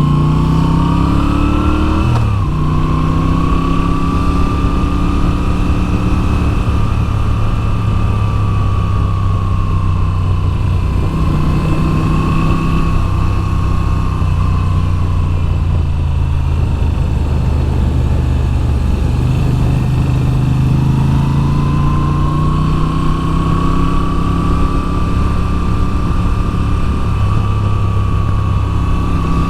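Moto Guzzi V7's air-cooled V-twin engine pulling on the move, its revs climbing, then dropping quickly about two seconds in. It holds fairly steady, eases off around the middle and picks up again about twenty seconds in, with a steady rush of wind under it.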